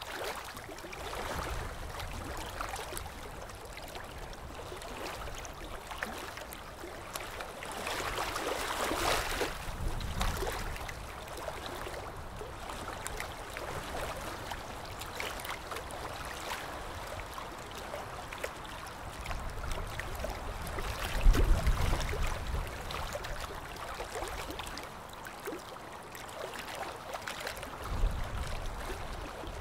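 Ultrasonic dental scaler running against thick tartar on lower front teeth, its tip cooled by a water spray, in a steady watery hiss. Louder spells come about nine seconds in and again around twenty-two seconds.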